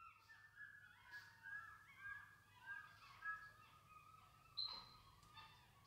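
A group of capuchin monkeys calling faintly: many short, overlapping chirping calls, several a second, with a brief higher whistle about four and a half seconds in.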